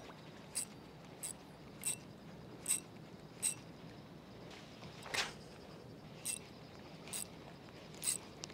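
Swish of a fishing rod being cast, a little past five seconds in, over a series of light sharp clicks about one every 0.7 seconds.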